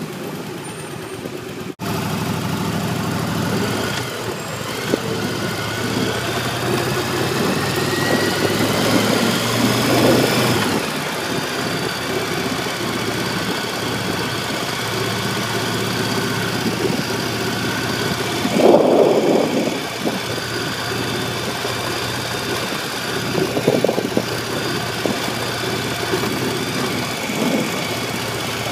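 Cruiser motorcycle engine heard from the handlebars while riding: it pulls away with its pitch rising for several seconds, drops at a gear change about eleven seconds in, then runs steadily at cruising speed.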